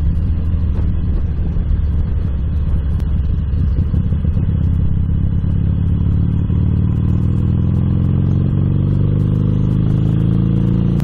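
Motorcycle engine running while riding, its pitch climbing steadily through the second half as the bike accelerates.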